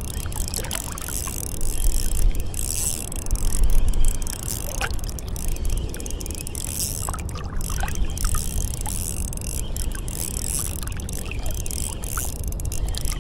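Water washing and sloshing, with wind rumbling unevenly on an action camera's microphone and a few faint clicks.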